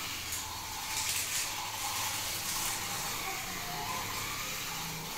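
Battery-powered Thomas toy train running along a plastic track: its small electric motor makes a steady whirr.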